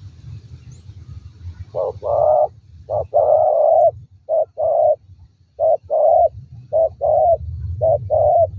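Spotted dove cooing: about six repeated two-part phrases, a short note then a longer one, starting about two seconds in. A steady low hum runs underneath.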